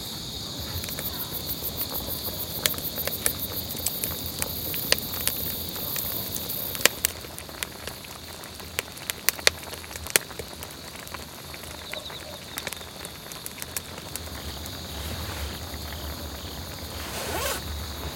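Wood fire crackling in a fire pit, with many irregular sharp pops scattered over a steady hiss.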